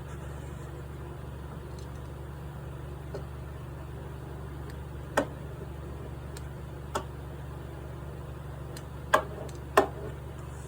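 A steady low hum with four sharp taps of small objects being handled, two of them close together near the end.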